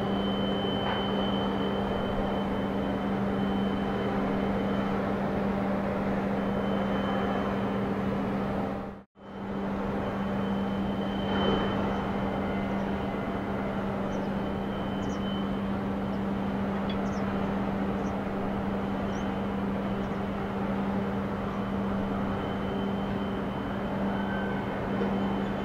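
Steady machinery hum of a container port: a constant low drone over a wash of noise. It drops out briefly about nine seconds in, then carries on unchanged.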